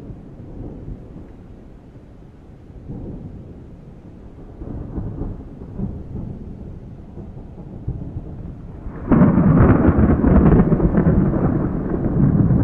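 Thunder rumbling low and unevenly, swelling in waves, then a much louder peal that breaks in suddenly about nine seconds in and keeps rolling.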